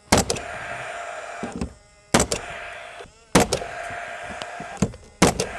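Paslode IM45 GN Lithium gas-powered cordless brad nailer firing repeatedly, driving nails into fibre-cement cladding planks, a sharp shot every second or two. After each shot the nailer's fan keeps whirring steadily, then dies away before the next shot.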